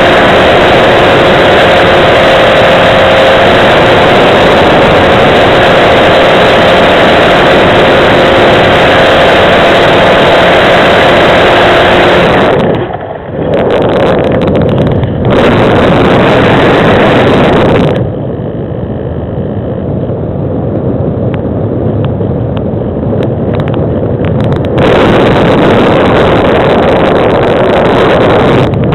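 Homebuilt RC model plane's motor and propeller running loud with rushing air, heard from a camera on board. It dips briefly about 13 seconds in, drops to a quieter level for several seconds from about 18 seconds in, then comes back up to full level.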